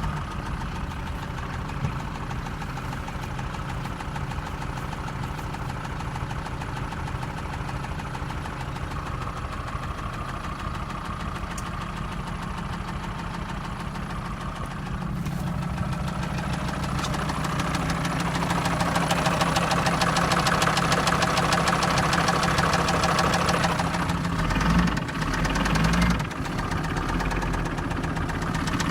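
Mercedes-Benz OM662 five-cylinder diesel engine running with a knock that comes and goes. It idles steadily, then speeds up about halfway through and runs faster and louder, with a couple of brief surges near the end.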